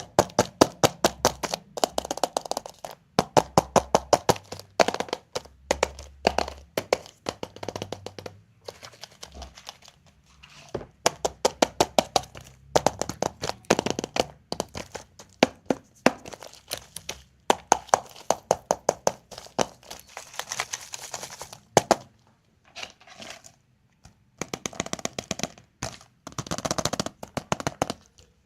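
Rapid runs of sharp cracks and clicks, coming in bursts of a few seconds with short pauses between, from surprise candy eggs and their plastic packaging being handled and broken open.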